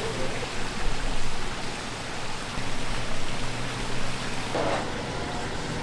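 Steady rushing and splashing of circulating water in a koi pond.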